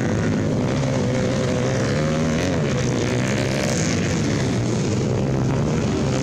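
Dirt-bike engine running continuously, its pitch wavering up and down a little a couple of seconds in.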